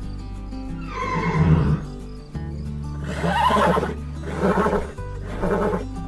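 Horse whinnying over steady background music: a call falling in pitch about a second in, a longer whinny around the middle, then several shorter calls about a second apart.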